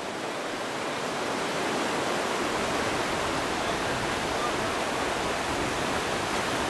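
Rushing whitewater of river rapids: a steady, dense roar of water that swells a little over the first couple of seconds and then holds.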